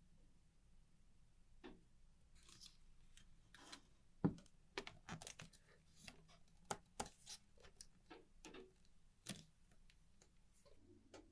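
Faint, scattered clicks and taps of small parts and hand tools being handled at the workbench, irregular rather than a steady tick, with one sharper knock about four seconds in.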